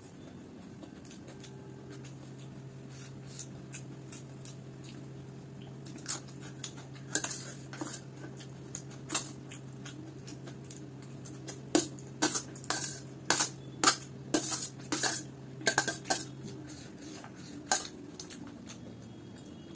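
Metal spoon clinking and scraping against a stainless steel plate as poha is scooped up, with scattered sharp clinks that come several a second in the second half. A steady low hum runs underneath and stops near the end.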